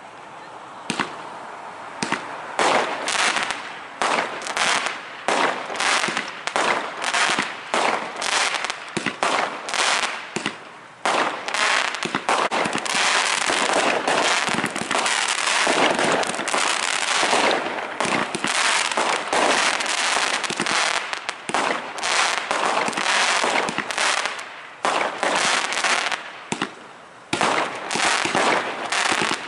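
Fireworks going off in a rapid, continuous barrage of bangs and crackling, several reports a second, starting about a second in. The bursts briefly thin out twice before picking up again.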